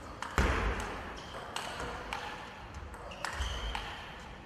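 Table tennis rally: the ball clicks sharply off bats and table in a quick exchange, about one hit every half second to second. Dull low thuds sound under several of the hits.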